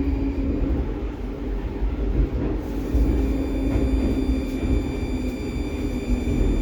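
Interior of a 'Baltiets' metro train car running through the tunnel: a deep rumble of wheels on rail with a steady high electric whine from the traction drive, as the train slows toward the next station.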